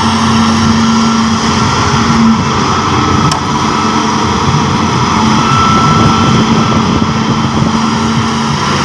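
Heavy machine's engine running loud and steady, with no breaks or revving changes.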